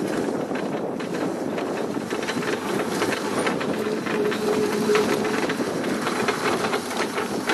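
Wheeled dog-training cart rattling and rumbling as it rolls over rough ground, with many small clicks and knocks throughout.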